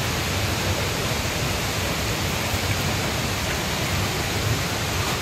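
Steady, loud rush of a waterfall, with a rumbling low end.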